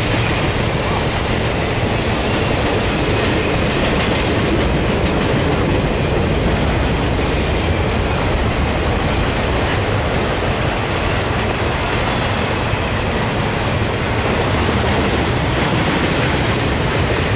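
Intermodal freight train's flatcars loaded with highway trailers rolling past at speed: a loud, steady rush of steel wheels running on the rails.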